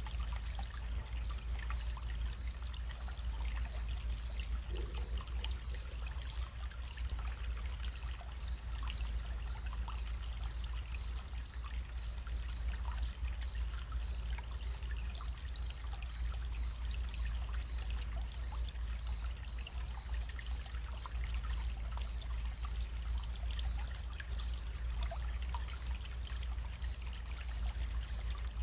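Small stream running and trickling steadily, a continuous babble of water with many small splashes, over a low steady rumble.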